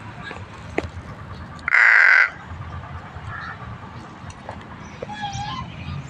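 A pet crow gives one loud caw about two seconds in, over faint background noise.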